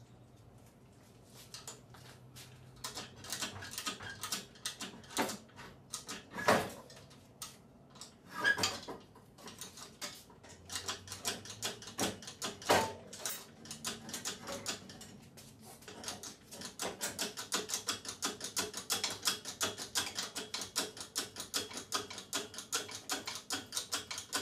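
Scattered metal clanks and knocks as a small-block Chevy 350 is worked up and out of the engine bay on an engine hoist, then from about two thirds of the way in a long run of rapid, even clicking.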